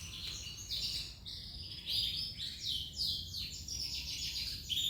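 Domestic canary singing a fast, continuous run of high chirps and trills.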